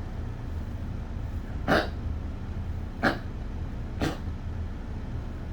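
Yorkshire terrier with a collapsing trachea giving three short, sharp coughs spread over a few seconds, the hacking of a tracheal coughing fit. A steady low hum runs underneath.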